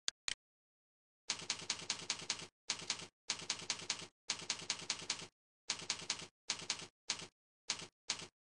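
Cursor click sound effects from CursorXP, a typewriter-like clack repeated in quick runs of about five clicks a second with short silent gaps between. The runs grow shorter near the end.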